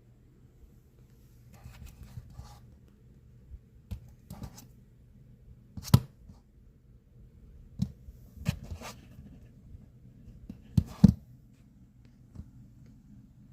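Handling noises: scattered sharp knocks and clicks with short bursts of rustling, the loudest being a single knock mid-way and a quick pair of knocks near the end.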